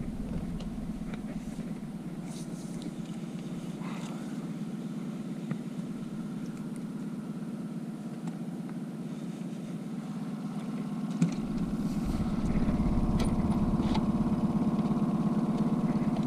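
Boat's outboard motor running steadily at trolling speed, a low even drone that grows louder and deeper about two-thirds of the way through.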